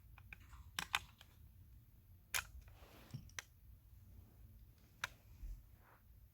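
Small parts of a diecast toy car, its metal and plastic body pieces, clicking and tapping as they are handled and fitted together by hand: a handful of sharp, scattered clicks.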